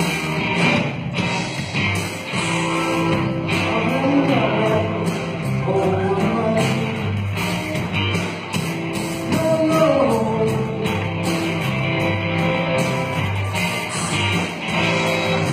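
Rock band playing live: electric guitar over a drum kit, with a steady driving rhythm.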